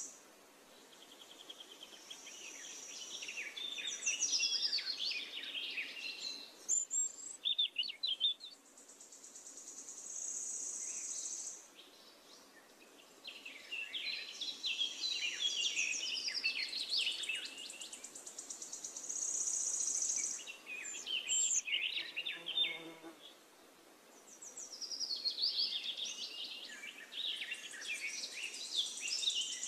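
Insects buzzing in high-pitched, repeated surges, rising and dying away every few seconds, with birds chirping.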